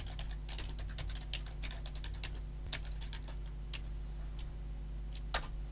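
Typing on a computer keyboard: an irregular run of key clicks, with one louder key press near the end, over a steady low electrical hum.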